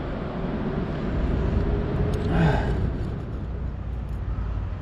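Low steady rumble of passing motor traffic, with a faint engine hum in the first half and a brief louder noise about halfway through.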